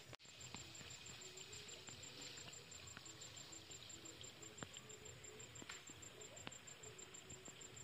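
Faint rural outdoor ambience: an insect calling in a high, rapid, even pulse, with a few faint clicks.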